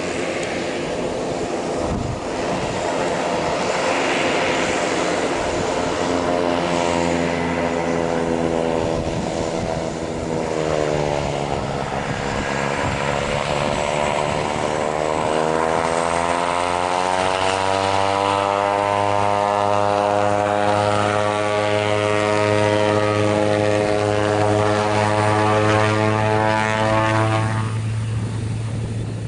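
Twin Pratt & Whitney PT6A turboprops of a Beechcraft King Air 350i running with a loud propeller hum. Its pitch dips about ten seconds in, then climbs steadily as power comes up for take-off, and a deep steady drone joins about two-thirds of the way through.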